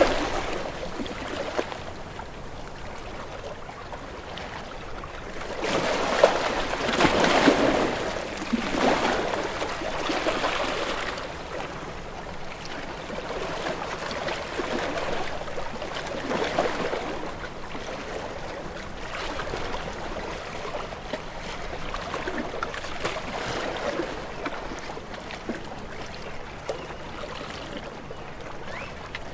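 Sea waves washing in on a shore: a steady rush of water that swells every few seconds as each wave comes in, the strongest about six seconds in.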